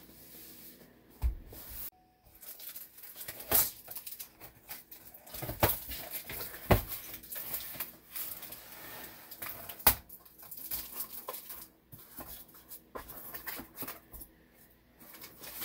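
Cardboard box being opened by hand, its flaps pulled back and the packaging inside rustled and shifted, with irregular scrapes and several sharp knocks.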